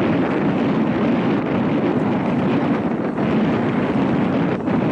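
Steady rushing wind noise on the microphone, a dense even roar with no distinct tones.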